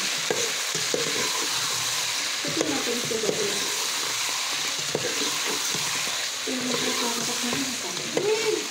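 Chicken pieces sizzling as they fry in hot oil in a metal pot, stirred with a spoon that scrapes and clicks against the pot now and then.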